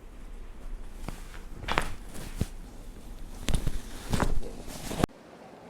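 A run of short knocks, taps and rustles from bodies moving during a chiropractic treatment, the loudest near the middle and about four seconds in; the sound cuts off suddenly near the end.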